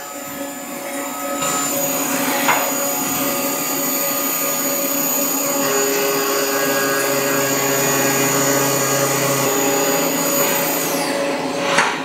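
CNC mill cutting an aluminum block with a 1/8 inch ball end mill: a steady high spindle whine over the hiss of flood coolant spraying on the part. Near the end the high whine drops in pitch and fades away.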